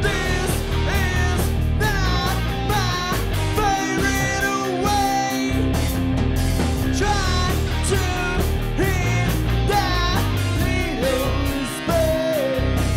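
Rock band playing live: electric guitars, bass guitar and drum kit, with a male lead vocal singing over them.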